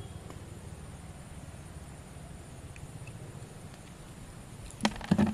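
Quiet outdoor ambience: a low steady rumble with a faint high, thin drone above it. Near the end, a few sharp knocks and then a loud burst of sound break in.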